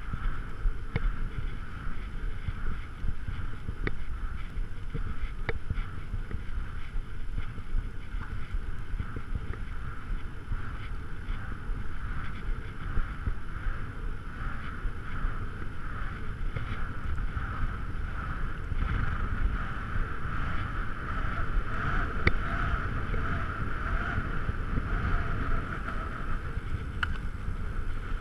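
Steady rolling noise of a road bike riding on an asphalt path: low rumble from the tyres and wind buffeting the microphone, with a steady higher whine that grows louder in the second half and a few light clicks.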